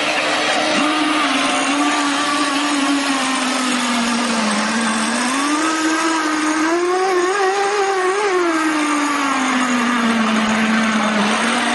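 Radio-controlled model speedboat's motor running at speed with a steady buzzing whine; its pitch rises about five seconds in, peaks near eight seconds as the throttle opens, then falls back, with water rush beneath it.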